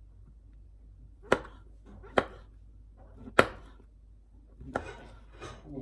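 A knife chopping on a cutting board: three sharp strokes about a second apart, then two rougher, softer knocks near the end.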